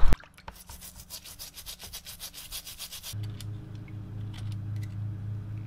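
Paintbrush bristles scrubbed rapidly back and forth over a rusty, flaking painted steel plate, a rubbing scrape about eight strokes a second. About three seconds in this stops, leaving a steady low hum with a few light clicks of a metal pick against a ball bearing.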